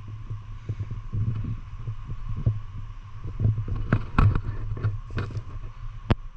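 An off-road vehicle's engine running with a steady low drone as it drives over rough ground. Irregular knocks and clunks from the body and suspension come through, bunched about four seconds in, and there is one sharp click near the end.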